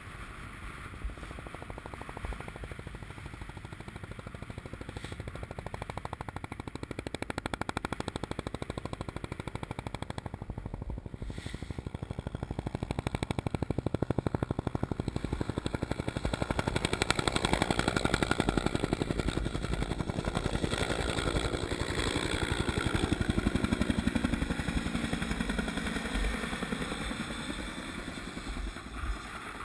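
Bell UH-1 Huey helicopter flying past, the rapid beat of its two-bladed main rotor growing louder and then fading. It is loudest about two-thirds of the way through, and the pitch sinks as it passes and moves away.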